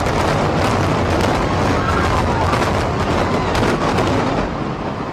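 Controlled implosion of the Sands hotel tower: a rapid string of demolition charges going off with a heavy low rumble as the tower comes down. The bangs thin out about four seconds in.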